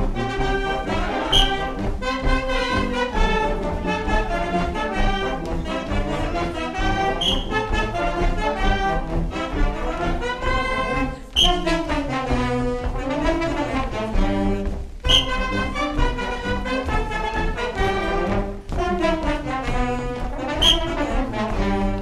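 Live band music led by brass instruments, playing continuously for the dancers.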